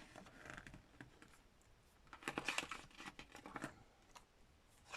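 Soft paper rustles as the pages of a book are turned, with the largest cluster of rustles a little past halfway.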